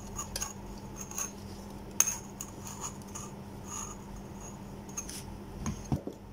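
Faint clicks and light rubbing of small metal torch parts handled by fingers as a wire is twisted onto the torch head, with one sharper click about two seconds in and a few taps near the end. A steady low hum runs underneath.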